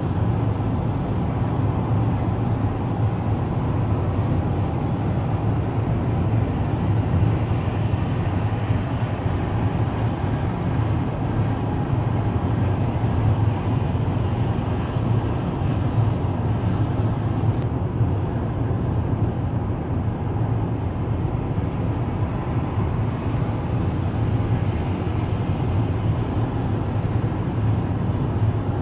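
Steady road noise inside a car cruising at highway speed: a low, even rumble of tyres on the pavement and the engine, unbroken throughout.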